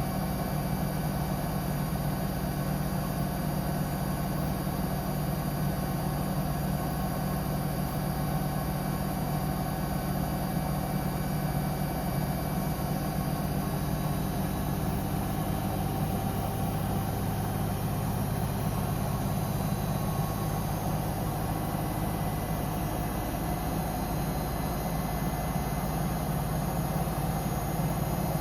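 Samsung Eco Bubble digital inverter washing machine running its spin, a steady hum from the drum and motor. The low tone shifts a little over halfway through as the drum speed changes.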